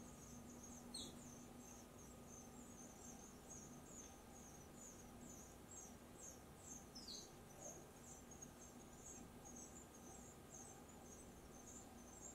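Near silence: room tone with a low steady hum and faint, regular high chirps about twice a second, plus two short falling chirps.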